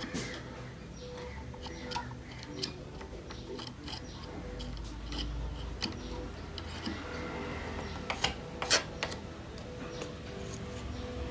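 Scattered light clicks and taps of handling, with two sharper clicks a little after the middle, over a low steady hum.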